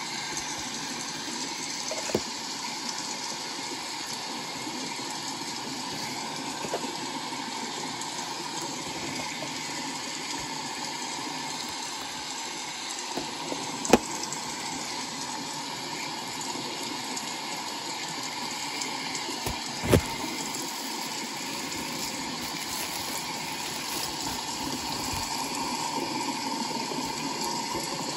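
A steady rushing hiss with a few sharp clicks and knocks from handling a model bus's cardboard-and-plastic display box. The two loudest clicks come a little past the middle.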